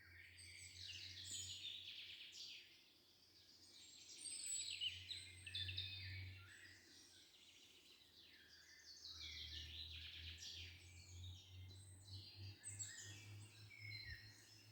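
Songbirds singing, many short chirps and trills overlapping throughout, over a faint steady low hum.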